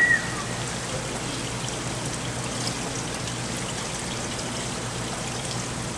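Steady rushing, trickling water noise in an indoor diving-pool hall, with a brief high tone that dies away right at the start.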